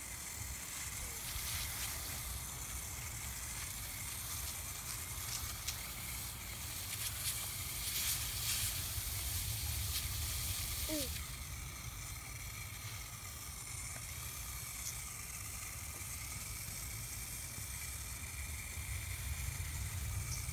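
Water hissing from a garden hose spray nozzle onto grass, steady, louder for a few seconds around the middle.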